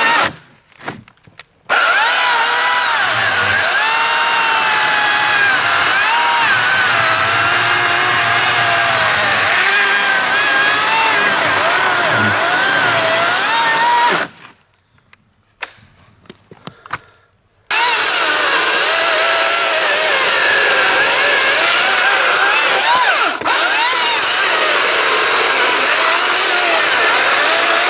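AEG 58V brushless cordless chainsaw (ACS58B200, 16-inch bar) cutting through logs, its motor pitch wavering up and down as the chain loads and frees in the wood. Twice it stops and the sound drops almost to nothing for one to three seconds before the saw starts cutting again.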